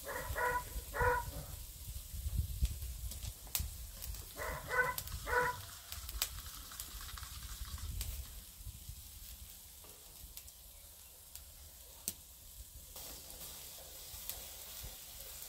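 Pork souvlaki skewers sizzling over a charcoal grill, with a few sharp crackles; the sizzle grows near the end as the skewers are basted. A dog gives short barks in two quick pairs, near the start and about four seconds in.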